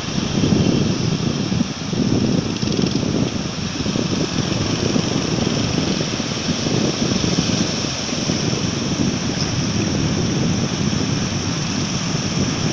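Surf breaking and washing up the sand, a continuous low roar that swells irregularly, with wind buffeting the microphone.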